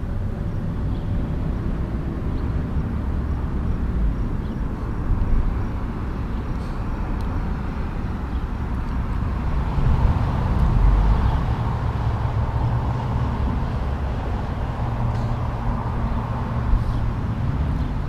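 Diesel engine of a loaded Mack CL700 log truck running at low speed as the truck and its pole trailer of logs roll past. The rumble of tyres and trailer swells for a few seconds about ten seconds in.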